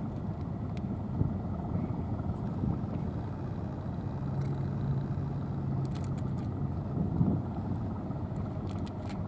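Wind rumbling on the microphone, with a steady low engine hum for about three seconds in the middle.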